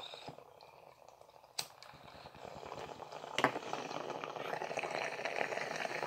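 Water in a glass bong bubbling as smoke is drawn through it, louder and fuller from about halfway, when the bowl is pulled out for the final clearing draw. A sharp click comes about a second and a half in and another about halfway.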